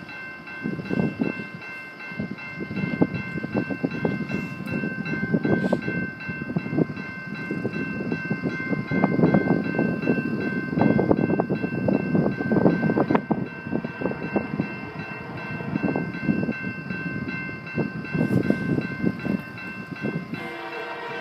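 Level-crossing warning bell ringing steadily with wind gusting on the microphone, and near the end the approaching diesel locomotive's air horn starts to sound.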